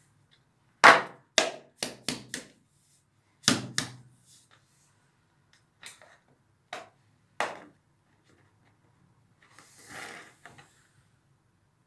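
A cylindrical canister being handled and its lid worked open: a quick run of sharp knocks and taps, then a few single taps about a second apart, and a brief rustle near the end.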